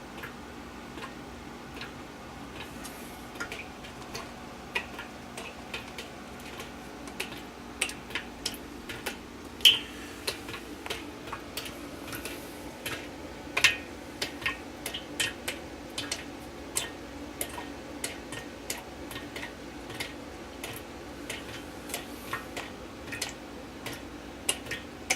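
Water drops falling one by one into the washing machine's tub and splashing into the small pool gathered at the bottom: irregular sharp drips, a few a second at times, over a steady low hum. The drips come from a pair of supply valves leaking even when closed.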